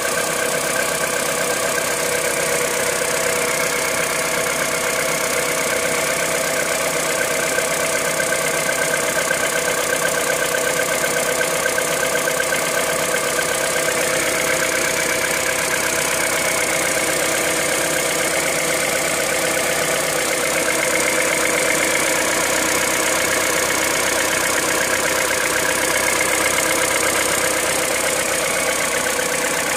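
Car engine idling steadily while still cold, at about 65,000 km, with the cold-engine noise its owner is concerned about running throughout.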